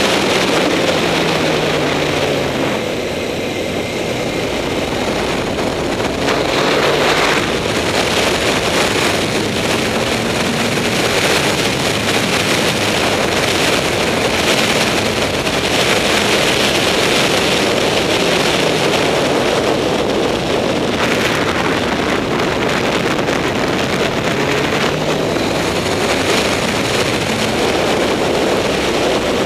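Honda CBR954RR's inline-four engine running at speed, its pitch rising and falling with throttle and gear changes, heard under heavy wind rush on the onboard microphone. Loudness dips briefly about three seconds in.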